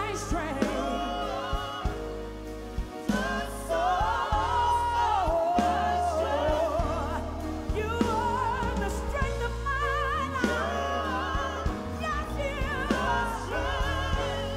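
Live gospel music: a woman singing lead with heavy vibrato, backed by a band with keyboard, bass and drums.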